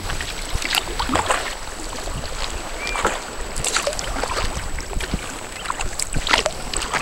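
Kayak paddle strokes in glassy calm sea water: the blades dipping in and water splashing and dripping off them in an irregular rhythm.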